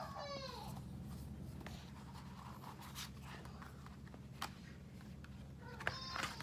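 Cardboard and plastic phone packaging being handled and rustled, with several light clicks and taps, over a steady low hum.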